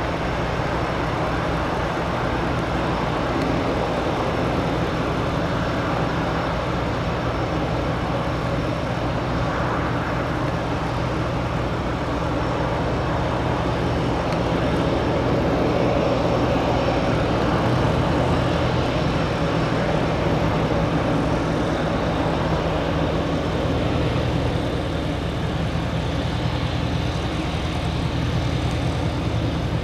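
Diamond DA-42 Twin Star's twin propeller engines running steadily, swelling a little about halfway through.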